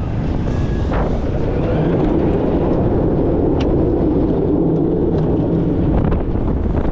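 Premier Rides Skyrocket II coaster train running on its steel track, with a steady rumble of wheels and rushing air, a hum that swells through the middle and a few sharp clicks.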